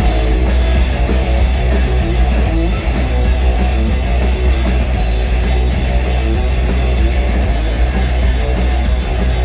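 Live punk rock band playing loud: distorted electric guitars, bass guitar and drum kit, with heavy low bass.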